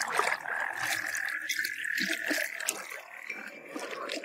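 Pond wildlife ambience: a steady high hum that weakens about two seconds in, with soft scattered clicks and light water splashes.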